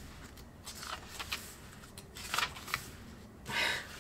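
Paper pages of a small Moleskine sketchbook being turned by hand: a few short rustles and swishes, the longest and loudest near the end.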